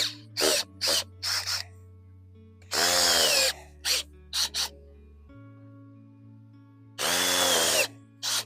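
Power drill with an earth auger bit boring planting holes in soil. It runs in two longer bursts, about three and seven seconds in, each whining up in pitch as the motor spins up, with several short trigger blips in between.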